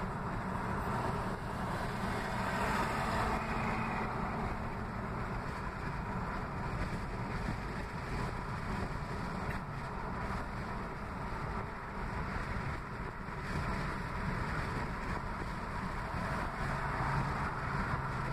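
Steady road and engine noise inside a moving car's cabin, with some wind noise, swelling slightly for a couple of seconds near the start.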